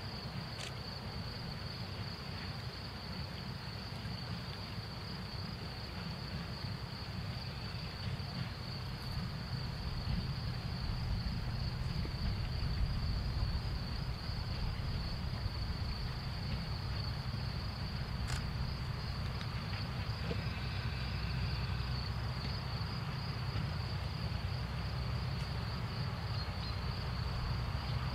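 Distant Henschel-built narrow-gauge diesel locomotive running with a low engine rumble as it moves off slowly, growing louder about a third of the way in. A steady high insect drone carries on throughout.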